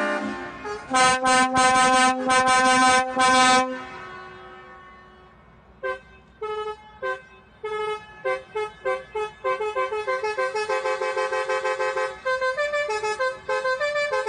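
Basuri musical vehicle horn: a held chord ends, then comes a string of loud blasts, and from about six seconds in a quick tune of short toots stepping up and down in pitch.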